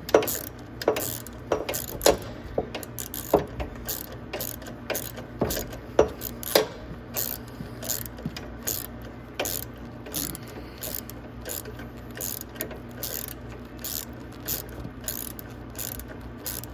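Hand ratchet with an 8 mm socket clicking on its back-strokes as it loosens a battery mounting bolt. The clicks come irregularly throughout, stronger in the first half and lighter and quicker later.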